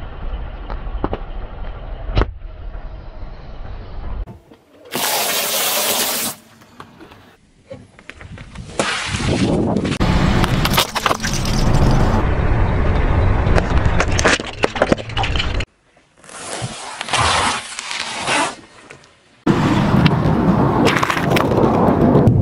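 A car tyre rolling over and crushing objects on asphalt, heard as a string of cracks, crunches and pops of breaking plastic, with tyre and engine rumble. The sounds come from several short clips joined with abrupt cuts.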